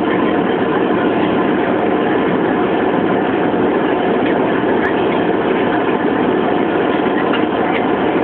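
Hovercraft engines and fans running steadily, heard from on board: a dense, even drone that holds one level throughout.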